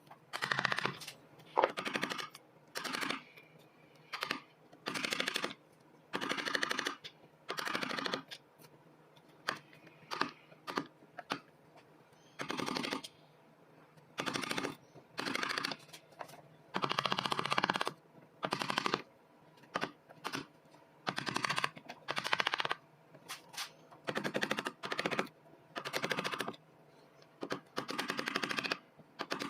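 Hand tool working wood in short, gritty strokes of about half a second to a second each, roughly one a second with irregular pauses, as a plane handle is shaped.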